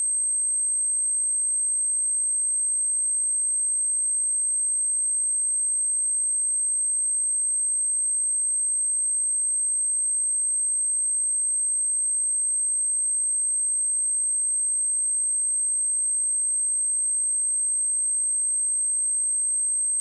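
Pure 8311 Hz sine-wave test tone: a single steady, high-pitched whistle held at one pitch and level without a break. It is a speaker test tone, also played to shake water and dust out of a speaker.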